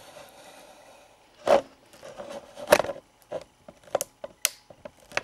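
Metal pocket watch and its chain being handled: a soft rustle, then a series of scattered sharp clicks and light knocks.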